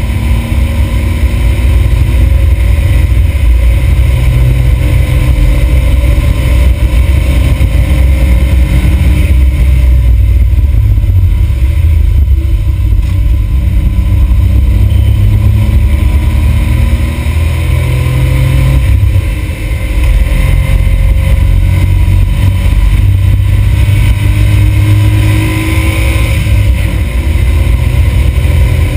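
Smart Roadster's turbocharged three-cylinder engine heard from inside the cabin, driven hard: loud low rumble with the revs rising and falling through the gears, over steady road and wind noise.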